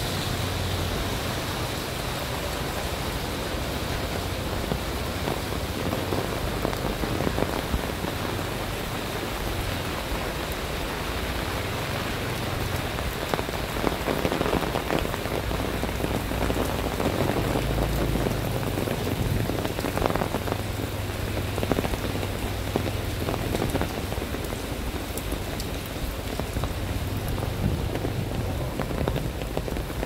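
Steady rain falling on a wet paved street, with a low rumble coming and going underneath.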